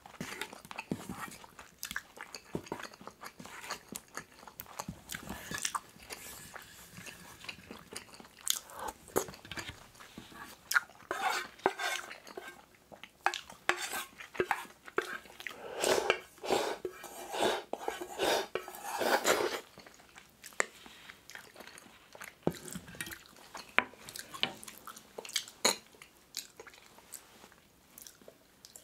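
A wooden spoon scrapes and clinks against the inside of a thin metal pot, scooping up the last rice and kimchi stew, with close-miked chewing between the scoops. The scraping comes thickest and loudest around the middle, when the pot is tipped up to the mouth.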